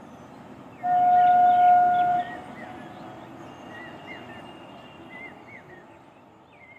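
Train horn: one loud, steady single-note blast about a second in, lasting about a second and a half, over the running noise of a diesel multiple unit pulling away, which fades near the end. Birds chirp throughout.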